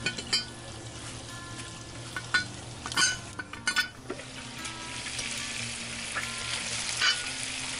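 Chicken pieces sizzling steadily in oil in a Lodge cast iron Dutch oven. A few sharp metal clinks come as the iron lid is hooked with a lid lifter and raised, the loudest about three seconds in and near the end.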